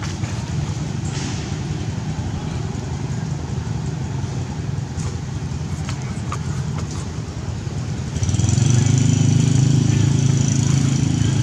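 A motor vehicle's engine running steadily, getting louder about eight seconds in.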